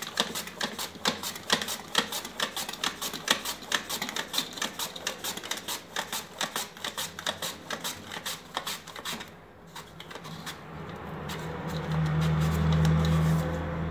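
A peeled potato pushed quickly back and forth over the blade of a plastic mandoline slicer, an even run of slicing strokes about four a second that stops about nine seconds in. A steady low hum then comes up and grows louder near the end.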